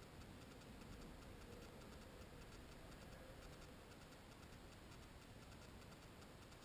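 Near silence: the muffled sound of water heard from inside a GoPro's waterproof housing, a faint steady hiss with faint, evenly spaced ticking.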